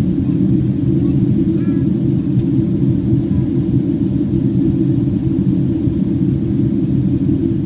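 Boeing 767-300 airliner cabin noise at a window seat over the wing during descent: a steady low rumble of engines and airflow, with a few steady low tones.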